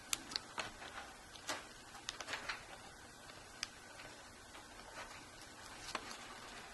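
Faint clicks and taps of fingers handling small plastic and metal parts inside an opened Kindle Fire HD tablet: a quick cluster of sharp clicks in the first two and a half seconds, then single clicks about three and a half and six seconds in.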